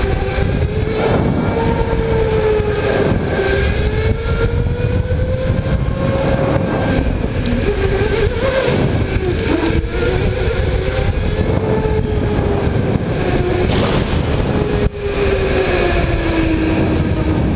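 Electric go-kart motor whining as the kart speeds up and slows through the corners, its pitch rising and falling, over a steady low rumble.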